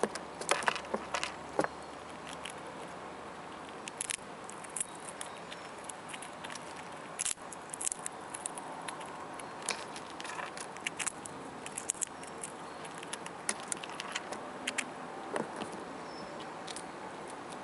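Grey squirrel eating close by, heard as irregular small clicks and ticks of nibbling, over a steady faint hiss. The sharpest clicks come in the first two seconds and again about seven seconds in.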